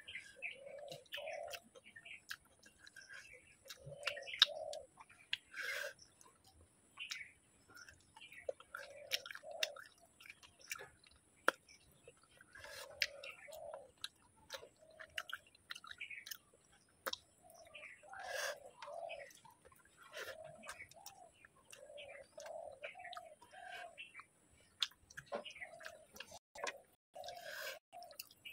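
Close-up chewing and mouth sounds of a person eating rice and fish curry by hand: soft smacks and small irregular clicks. Birds chirp faintly in the background.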